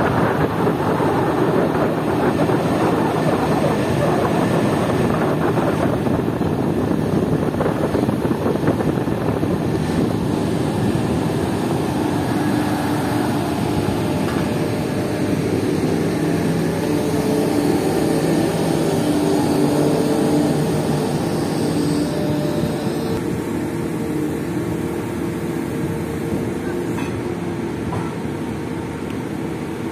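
Heavy construction machinery running steadily: the diesel engines of a crawler crane and piling rig make a continuous drone. A low engine hum becomes clearer about halfway through.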